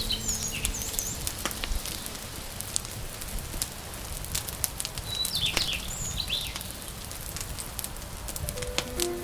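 Wood fire crackling, with irregular sharp pops over a low steady rush. Birds chirp twice: briefly near the start and again about five to six seconds in.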